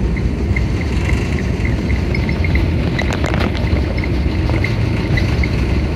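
Loud, steady cabin noise inside a Boeing 777: a deep, even rumble of engines and rushing air, heaviest in the low end.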